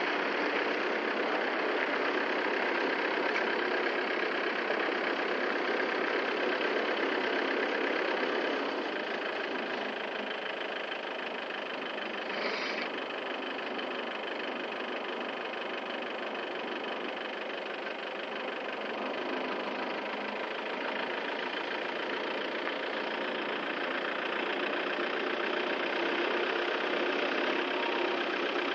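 Steady machinery running, with a brief higher-pitched squeak or chirp about halfway through.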